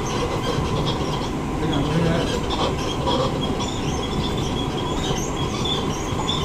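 Siemens C651 metro train running, heard from inside the carriage: a steady rumble with a string of short, high-pitched squeaks from the bogie repeating irregularly throughout, the odd bogie noise this trainset makes.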